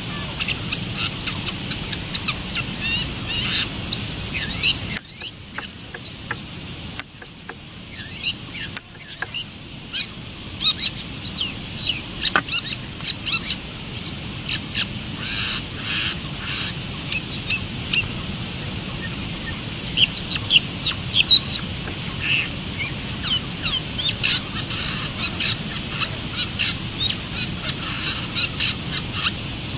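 Long-tailed shrike (cendet) calling in the wild, a busy run of quick, sharp chirps and short trills, over a steady high-pitched hum.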